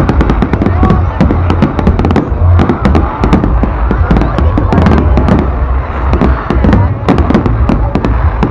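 Fireworks display barrage: a dense run of sharp crackling bangs, many a second, over a continuous deep rumble of heavier shell bursts.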